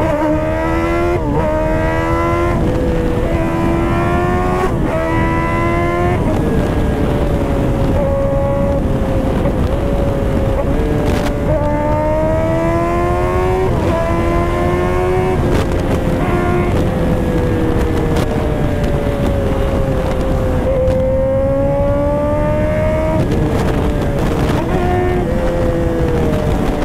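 Kawasaki ZX-10R's inline-four engine with an aftermarket exhaust, accelerating hard at highway speed. The pitch climbs and then drops at each upshift: four quick shifts in the first six seconds, then a steadier cruise, then more climbs and shifts around the middle and again near the end. Wind noise runs underneath.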